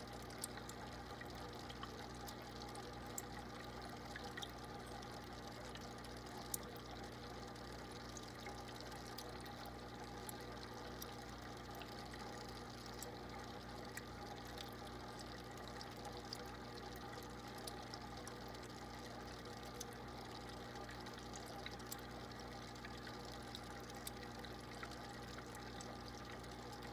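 Steady trickle of circulating aquarium water over a constant low hum, with scattered faint clicks.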